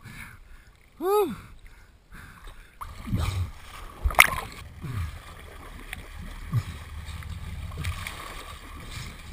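Seawater sloshing and splashing around a camera held at the sea surface, with a single short shout about a second in and louder splashes in the middle, one sharp splash the loudest.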